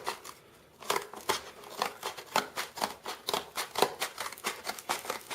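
Cardboard shipping box being cut open: a quick, irregular run of snipping, crackling cuts and scrapes, starting about a second in.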